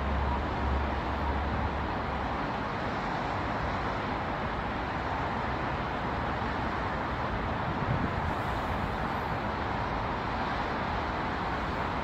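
Steady wash of road traffic noise from busy riverside roads, with a deeper low rumble during the first couple of seconds.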